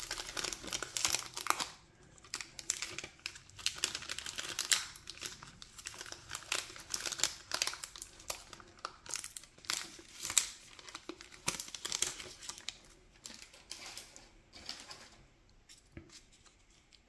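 Magic: The Gathering booster pack wrapper being torn open and crinkled by hand, a dense run of sharp crackling rustles that grows fainter over the last few seconds.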